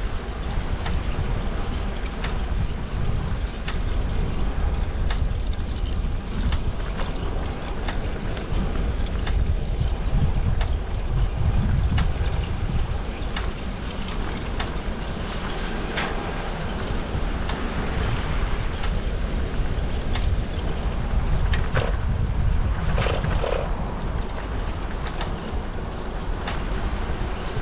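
Wind buffeting the microphone during a ride, over a steady rolling rumble with scattered clicks and rattles. There is a brief squeak a little over three-quarters of the way through.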